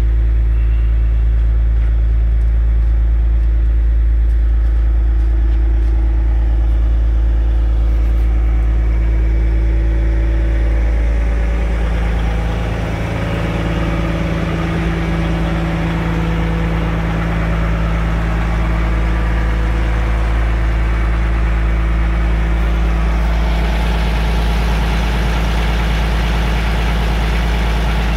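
Caterpillar 345D L excavator's C13 diesel engine idling steadily, with a deep hum; its tone shifts about twelve seconds in.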